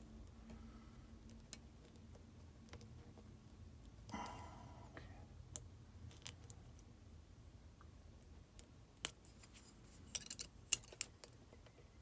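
Faint, sparse metallic clicks of a hook pick and tension tool working the discs of a Chubb AVA disc-detainer cam lock, with a quick cluster of clicks near the end as the last discs are picked.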